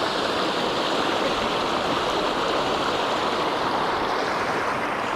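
Creek water rushing steadily over a riffle close by, an even, unbroken wash of noise.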